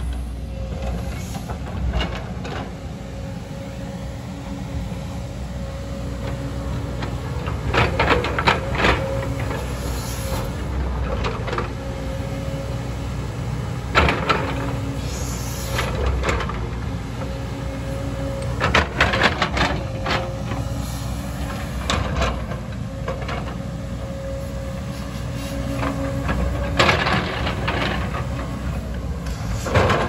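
JCB tracked excavator's diesel engine running steadily under load, with a steady whine that comes and goes, and about four spells of rocks clattering and scraping against the steel bucket as it digs through landslide rubble.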